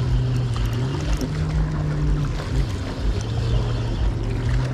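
A boat's motor running steadily, its low hum dipping and rising slightly in pitch a couple of times, with wind buffeting the microphone.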